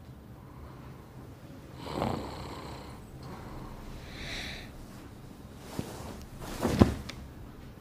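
A man snoring in his sleep: three separate snores about two seconds apart, the last the loudest.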